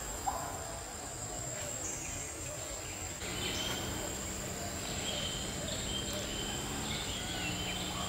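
Forest ambience: a steady high-pitched insect drone, with short bird chirps joining from about three seconds in.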